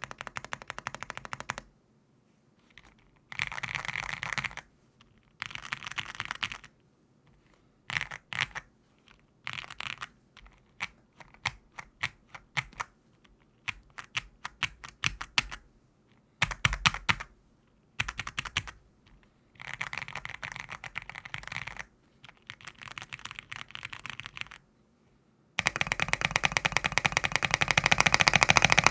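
Typing on mechanical keyboards, a Rainy75 and a Hi75 with Cherry MX2A Black linear switches, in short bursts of keystrokes and scattered single presses separated by pauses. About 25 seconds in it changes to a fast, unbroken run of rapid spacebar presses.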